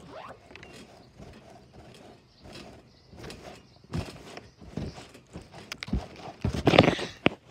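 Irregular thuds of someone bouncing on a trampoline, heard through the mat from a phone lying on it. Near the end there is a loud burst of knocking and rubbing as the phone is grabbed and picked up.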